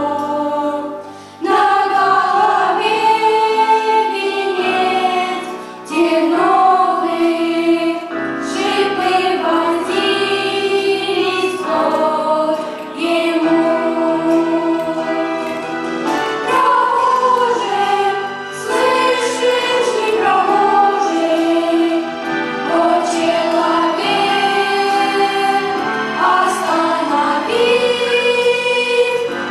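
A choir singing a Christian hymn, with several voices carrying a steady sung melody and brief breaks between phrases.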